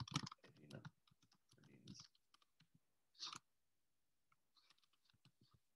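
Faint typing on a computer keyboard: a quick run of keystroke clicks, then a few scattered ones.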